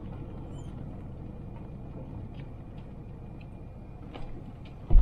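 Suzuki Jimny driving, heard from on board as a steady low rumble of engine and road noise with faint small ticks, and a sharp thump right at the end.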